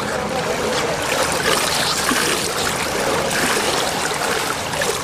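Swimming-pool water trickling and lapping into the overflow gutter grating at the pool's edge, a steady rush of running water with no pauses.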